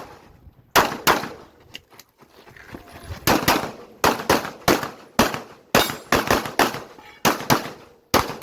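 Glock 9mm pistol fired rapidly in a practical shooting stage. Two shots come about a second in, then after a pause of about two seconds a fast run of shots follows, mostly in quick pairs.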